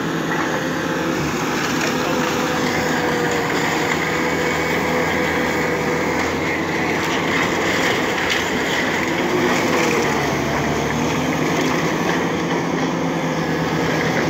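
Diesel engine of a Caterpillar 953 track loader running steadily.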